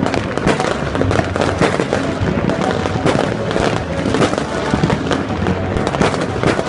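Fireworks and firecrackers going off thick and fast, a continuous dense crackle of overlapping bangs, with music faintly underneath.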